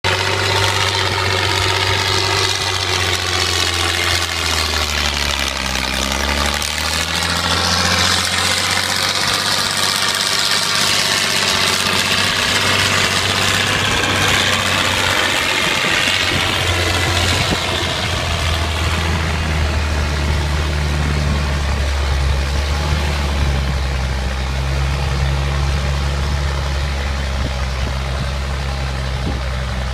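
Landini 13000 tractor's diesel engine running steadily under load as it pulls a three-furrow plough through heavy, cloddy soil. The engine note bends in pitch and grows brighter as the tractor passes close by, about midway through.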